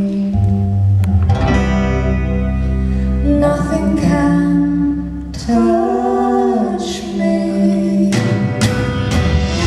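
Live rock band with guitar and bass playing a slow song, with a man and a woman singing over it.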